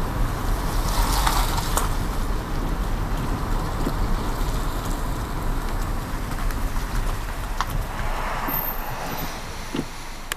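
Steady road noise and wind rumble from a car on the move, quieting near the end as it comes to a stop.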